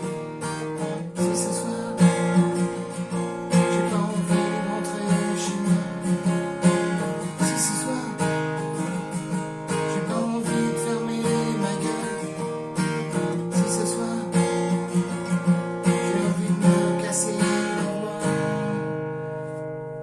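Acoustic guitar strummed in a steady rhythm pattern, chord after chord. About 18 seconds in it ends on a final chord left to ring and fade.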